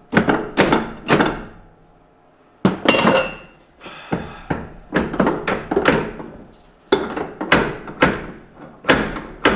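Repeated metal knocks and clanks as a drive axle is worked loose and shifted through a UTV's steel frame and bearing brackets. There are roughly two sharp knocks a second, with a short pause about two seconds in, followed by a clank that rings briefly.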